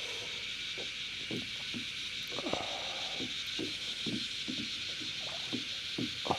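Steady high buzz of a cicada chorus, with scattered short soft taps and drips close by.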